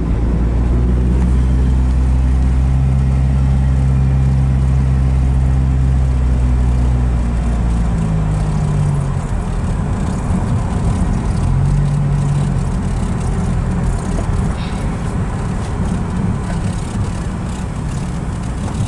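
Car engine and tyre noise heard from inside the cabin while driving. A steady low engine hum shifts in pitch a couple of times, around eight and twelve seconds in, as the speed changes, and the road noise grows rougher after about eight seconds.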